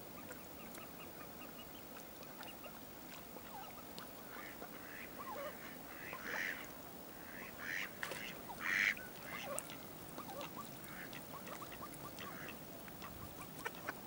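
A flock of mallards quacking and calling faintly, many short, scattered calls with a few louder bursts of quacking in the middle.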